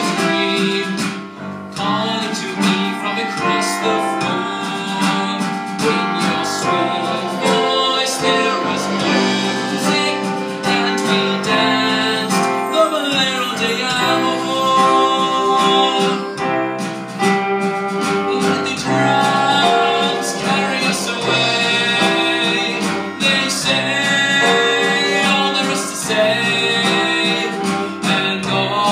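Live pit band playing an instrumental Spanish-style dance number.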